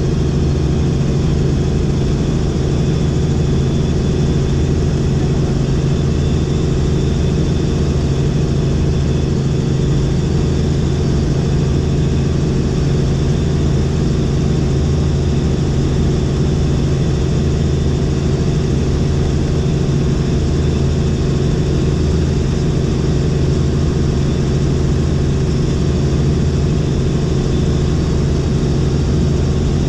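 Helicopter in flight heard from inside the cabin: a loud, unchanging drone of engine and rotors with a strong low hum.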